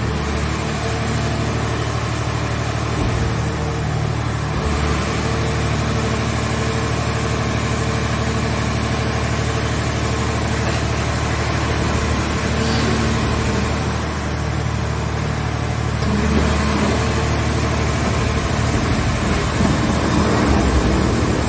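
Mobile scrap car shell baler's power unit running steadily with a low engine-like hum. A thin high whine dips in pitch and recovers twice.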